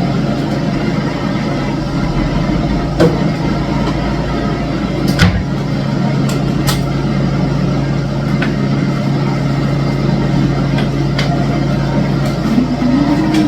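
A steady low mechanical hum, as from a running motor, with a few sharp knocks and a short rising-then-falling tone near the end.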